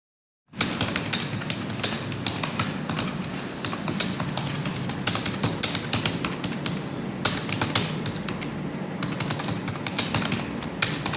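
Fast typing on a computer keyboard, a dense run of key clicks that starts about half a second in.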